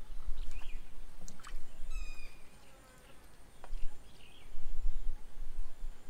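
Wind buffeting the microphone in gusts, with scattered short bird chirps and calls over it, one a drawn-out call with several overtones about two seconds in, and a faint steady high insect-like whine.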